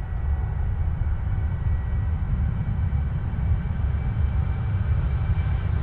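Jet engines of a Boeing 787-8 airliner running, heard as a steady low rumble with a faint, even high whine above it.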